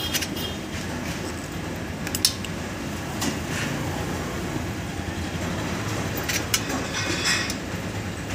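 Metal parts of a car starter motor clicking and clinking now and then as it is handled and reassembled by hand, over a steady low rumble.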